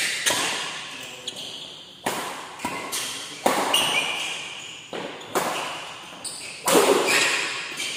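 Badminton rackets striking a shuttlecock back and forth in a doubles rally: a string of sharp hits about every second to second and a half, each ringing on in the echo of a large hall.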